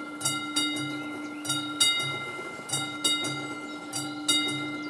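Warning bell of an AŽD 71 level-crossing signal ringing: the classic mechanical bell struck in pairs of strokes, a pair a little more than once a second, its ringing tone hanging on between strikes, signalling that a train is approaching and the crossing is closed.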